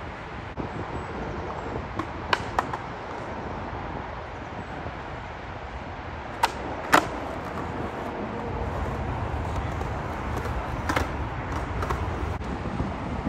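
Skateboard rolling on concrete with several sharp clacks of the board popping and landing, the loudest about seven seconds in. Wind and freeway traffic noise run underneath and grow louder in the second half.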